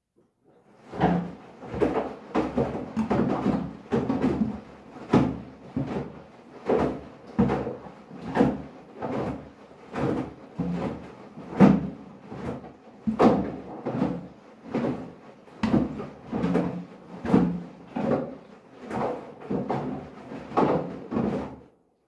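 Hoover front-loading washing machine tumbling a wet bath mat and mop, the heavy load thudding in the drum about once every three-quarters of a second.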